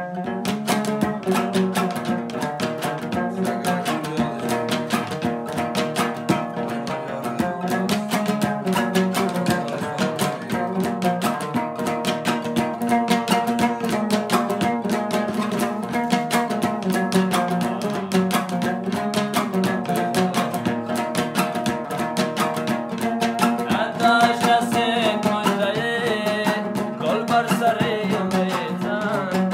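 Dambora, the Afghan two-string long-necked lute, strummed in a fast, steady rhythm. A man's voice comes in over it near the end.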